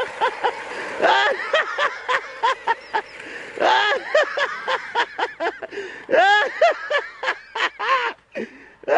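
People laughing and whooping: rapid bursts of laughter throughout, with a long drawn-out shout about six seconds in and another at the end.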